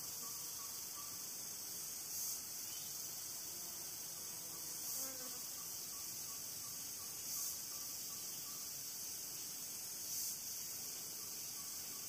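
Chorus of insects: a steady high-pitched buzz that swells briefly about every two and a half seconds, with a faint fast-pulsing tone below it that comes and goes.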